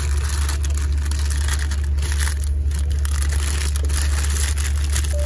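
Steady low engine drone inside a vehicle, with irregular crinkling and rustling noise over it.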